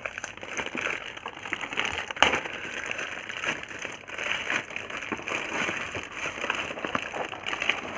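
Plastic packaging crinkling and crackling as it is handled and pulled open, with an irregular patter of small clicks and one sharper click about two seconds in.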